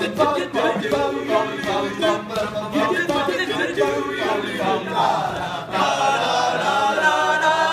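Male a cappella group singing wordless backing syllables in harmony. Short, rhythmic syllables give way to longer held chords about five seconds in.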